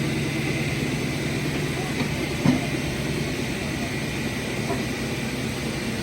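A heavy diesel engine running steadily, with a single short clank about two and a half seconds in.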